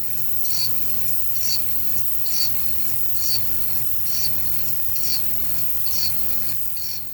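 Hand file working a half-inch brass plate, in even rasping strokes about one a second.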